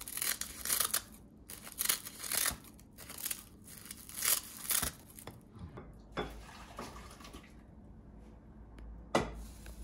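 Kitchen scissors snipping through sheets of dried laver (gim), about six crisp snips in the first five seconds, then one sharp click near the end.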